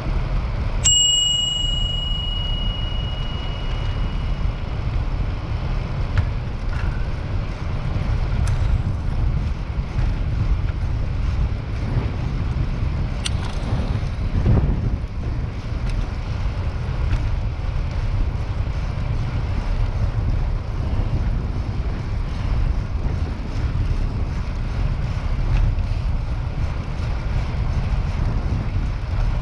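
Steady wind rush on the microphone of a moving bicycle, with a bicycle bell rung once about a second in, its clear tone ringing on for about three seconds as it fades.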